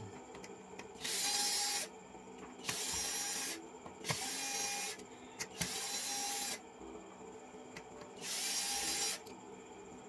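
Five short hisses of pressurised spray, each just under a second long, with gaps of about half a second to two seconds between them.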